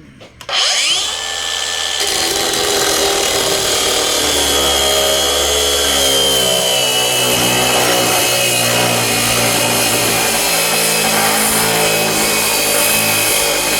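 DeWalt 9-inch angle grinder spinning up with a quick rising whine, then cutting through thick steel plate. The cutting noise is loud and steady, and the motor's whine sinks slowly in pitch as it works under heavy load.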